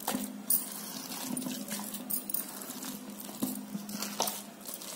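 A hand squeezing and turning a thick, coarse ground-lentil dough in a steel bowl. Soft mushing is broken by irregular light clinks against the bowl.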